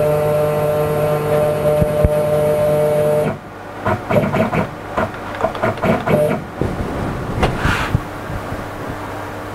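Z-axis motor of a CNC-converted Sieg X2 mini mill jogging the end mill down toward the work: a steady whine that stops about three seconds in, followed by a run of short whirring bursts as the tool is inched down in small steps toward the top of the material.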